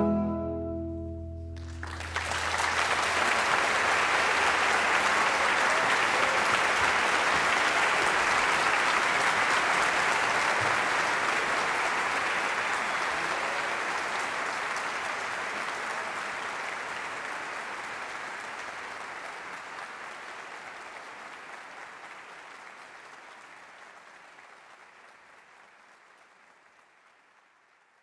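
The last chord of four double basses stops, and about two seconds in an audience breaks into applause that goes on steadily, then slowly fades away toward the end.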